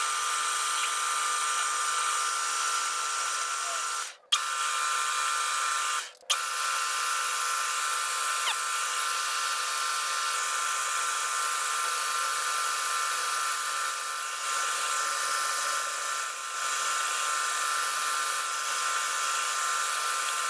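Atlas metal lathe running at a steady speed, a constant mechanical whine, as a drilling operation is carried out on it. The sound cuts out briefly twice, about four and six seconds in.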